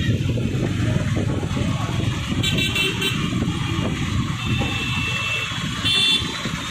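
Street traffic heard from a motorbike, a steady low rumble under several vehicle horns: a quick run of short beeps about two and a half seconds in, a longer held horn a couple of seconds later, and a short loud toot near the end.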